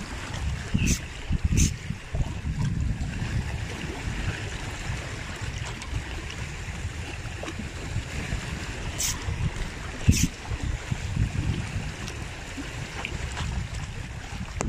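Small sea waves lapping and washing over breakwater boulders, with wind rumbling on the microphone. A few short sharp sounds come through, the loudest about ten seconds in.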